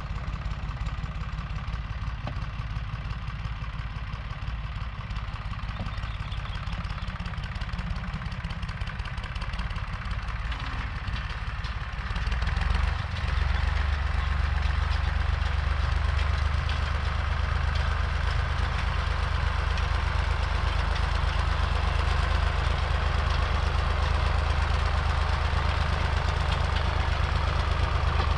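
Valmet 359D tractor's three-cylinder diesel engine running steadily as it pulls a seed drill across the field; its deep engine note grows louder about twelve seconds in and holds there.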